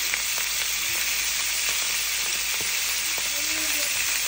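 Skewered chicken tikka kebabs sizzling steadily in a hot ridged grill pan, with a few light pops from the spattering marinade and fat.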